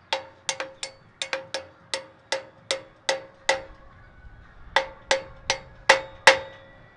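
Repeated hammer blows on the steel of an Eli Bridge Ferris wheel, about two to three a second, each one ringing, with a short pause about halfway through. The blows are working at a seized pin whose end is peened over.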